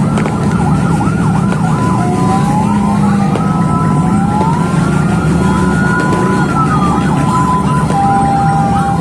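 Several ambulance sirens sounding at once and overlapping: a fast yelp, slower rising and falling wails, and steady held tones, over a dense low rumble.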